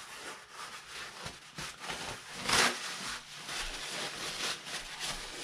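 Paper towel rustling and rubbing as it wipes dirt off an RC monster truck's chassis and shocks, with one short, louder swish about two and a half seconds in.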